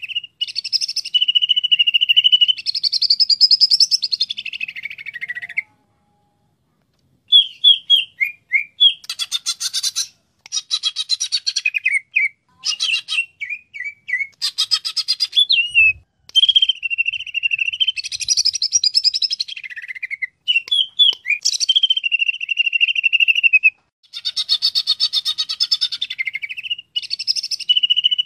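Cucak ijo (green leafbird) singing: loud, varied phrases of rapid chattering trills mixed with held, clear whistled notes and quick rising and falling notes. It falls silent for about a second and a half about six seconds in, then goes on singing.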